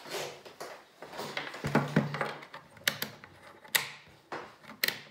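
Handling noise as a Fluke 15B+ digital multimeter is set down on a wooden tabletop with a low thump, followed by several sharp clicks as its rotary selector dial is turned.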